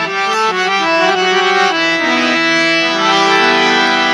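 Harmonium playing a short melodic phrase of held reed notes, stepping through several pitches in the first two seconds and then settling on sustained notes.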